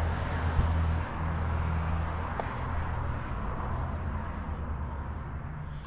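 Wind buffeting the microphone on an exposed mountaintop: a steady low rumble with a dip about a second in.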